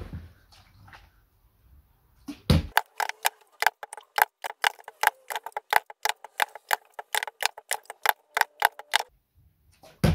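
A thump, then a fast, even run of sharp clicks, about five a second, lasting about six seconds. Another thump comes right at the end.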